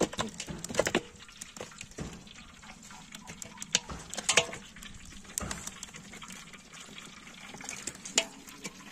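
Raw chicken pieces sliding out of a plastic bowl into an aluminium basin: wet slaps and plops of meat landing on the metal and on each other, at irregular moments, a few louder than the rest.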